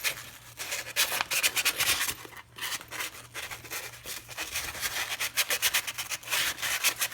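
400-grit sandpaper rubbed briskly back and forth over steel brake caliper pad pins, cleaning them. The strokes come in a quick, uneven scratchy rhythm with a few short pauses.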